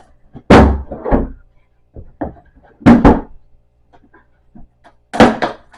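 Loud wooden knocks and thuds while a wooden printer stand is being pried and knocked apart. There are three pairs of sharp knocks, each pair a couple of seconds after the last.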